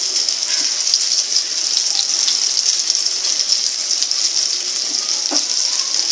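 Rice-flour-coated black pomfret (halwa) shallow-frying in oil on a hot tawa: a steady sizzle with fine crackles.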